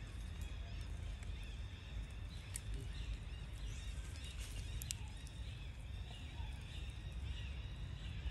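Outdoor ambience: a steady low rumble with faint, wavering high-pitched chirps scattered throughout and a few sharp clicks.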